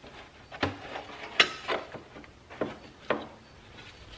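A handful of short knocks and clicks as the lower side body panel behind a C4 Corvette's front wheel is worked loose from its clips and pulled off the car.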